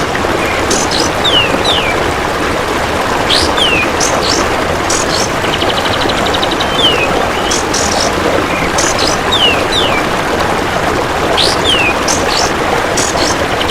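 Kapas tembak bird calling over and over: short downslurred whistles and sharp high chirps every couple of seconds. A fast, even buzzing pulse train from the belalang emas insect recurs a few times. A loud, steady rushing noise lies under everything.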